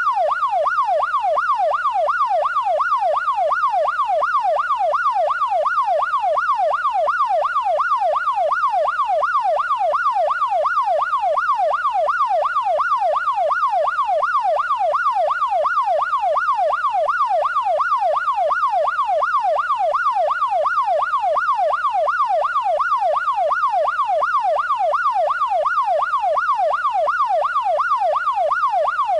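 Electronic police siren in a fast yelp: one tone sweeping evenly up and down, about twice a second, steady and unchanging throughout.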